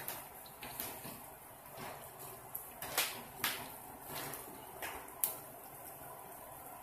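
Hot chicken drippings sizzling in a foil-lined roasting pan fresh from a 400°F oven: a faint hiss with irregular sharp pops every second or so.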